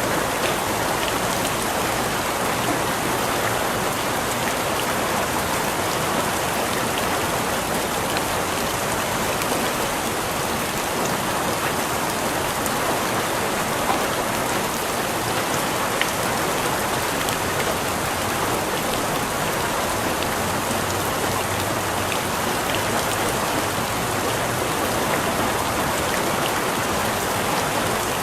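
Steady heavy rain falling on a hard surface: a dense, even hiss of many drops with occasional louder individual drop hits.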